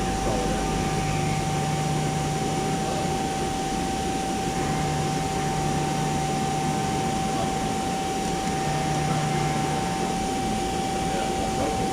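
CNC machining center running a cutting program: a steady noise with a constant whine throughout and a lower hum that starts and stops several times.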